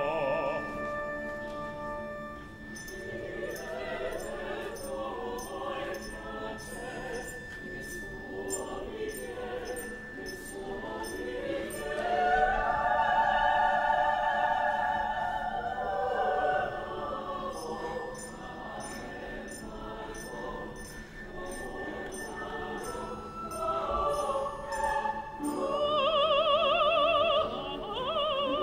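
Opera singing with orchestra: voices with wide vibrato holding long notes, swelling loudest about halfway through. Near the end a high voice sustains a strongly vibrating note.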